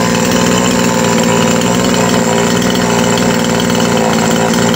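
Two-stroke chainsaw engine running steadily at an even speed, after a carburettor fault that had kept it from taking load was fixed.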